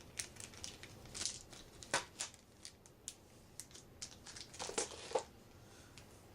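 Handling noise as small plastic dice are cleared away: scattered clicks and crinkling plastic in short bursts, the loudest about two seconds in and again toward the end.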